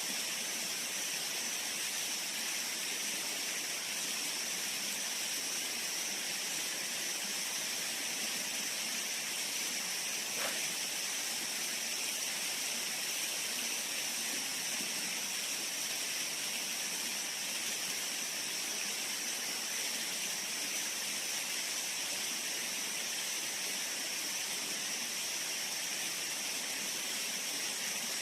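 Steady rushing of river water, an even hiss that never lets up.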